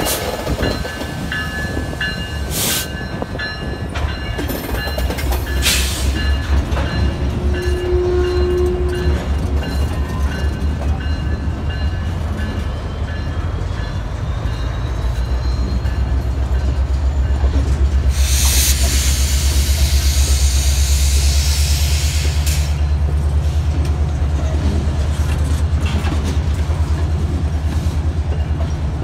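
Canadian Pacific diesel freight train moving slowly through a yard: a steady low rumble of locomotive and rolling cars that grows louder as the freight cars pass. Sharp metallic clanks come at about three and six seconds in, and there are a few seconds of hiss past the middle.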